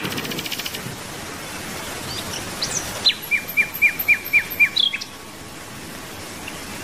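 Songbirds chirping over a light outdoor background hiss, with a quick run of about seven short, falling notes in the middle.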